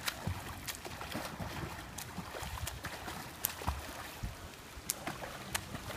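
Water splashing from a child swimming freestyle in a pool: irregular light splashes from the arm strokes and kicks.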